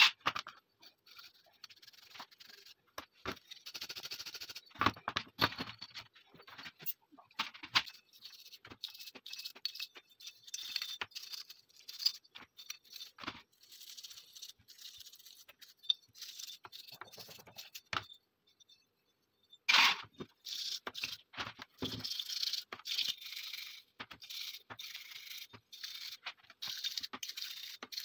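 Brushes scrubbing the metal frame and slide of a .30 bore pistol wet with cleaning liquid: irregular scratchy strokes with small rattles of metal. A brief break about two-thirds of the way through is followed by a louder sudden noise.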